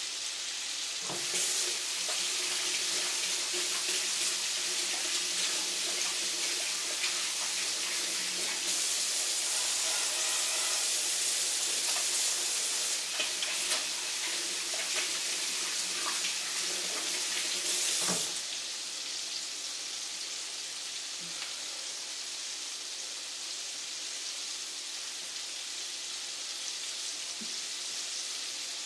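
A kitchen tap runs while hands are washed, over the steady sizzle of chicken frying in Crisco shortening in a cast iron skillet. About two-thirds of the way through the tap shuts off suddenly, leaving only the frying sizzle.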